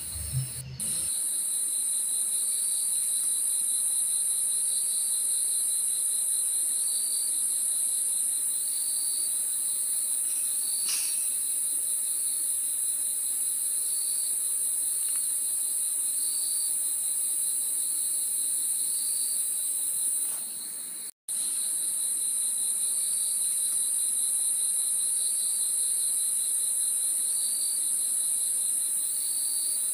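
Night chorus of crickets: a loud, steady, high-pitched trill, with a lower chirp repeating about once a second. The sound cuts out for a moment about two-thirds of the way through.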